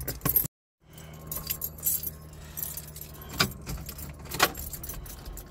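Car keys jangling, with a couple of sharp clicks a second apart about three seconds in, over a low steady hum.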